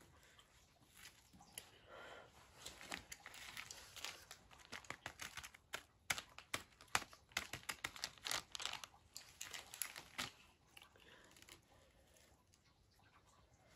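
Crinkling and rustling of a plastic snack packet being handled, a dense run of crackles through the middle that thins out near the end.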